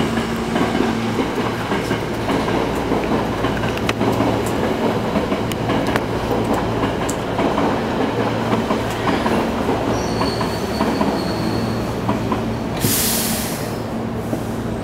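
Running sound of a Hankyu 8000-series electric train (set 8003F, Toshiba GTO inverter): a steady rumble with a low hum and scattered rail clicks. A short burst of hiss comes near the end.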